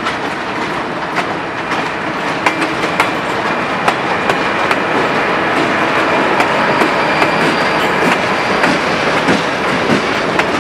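A passenger train's coaches and trailing diesel locomotive roll past at close range: a steady rolling noise of wheels on rail, with frequent sharp clicks as the wheels cross rail joints. A faint high squeal comes in for a few seconds past the middle.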